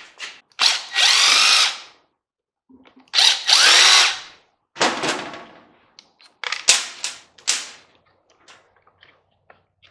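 Cordless drill backing screws out of a microwave's fan motor: two runs of a second or so each, its whine rising and falling with the trigger, then several short bursts.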